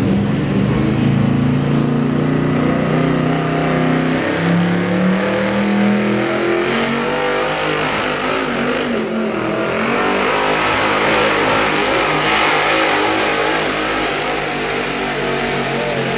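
1979 Ford F350's 460 big-block V8 running at full throttle while pulling a truck-pull sled. Its pitch climbs over the first several seconds, then holds high and loud under a heavy rush of noise as the truck goes down the track.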